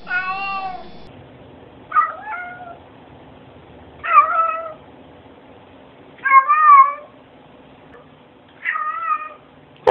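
Domestic cats meowing: one meow ends about a second in, then short rising-and-falling meows come about every two seconds.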